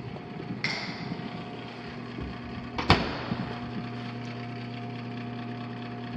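Microwave oven running with a steady low hum, heating properly. A click sounds just under a second in and a sharper, louder click about three seconds in.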